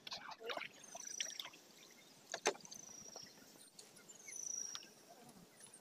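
Water trickling and splashing with scattered light knocks around a small boat. A thin, slightly falling high whistle repeats about every second and a half.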